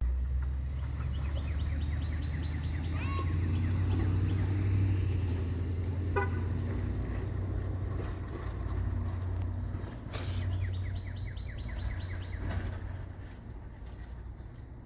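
A steady low rumble with a few brief high-pitched mews from newborn kittens, about 3 and 6 seconds in. Two quick runs of short falling chirps come early and again near the end.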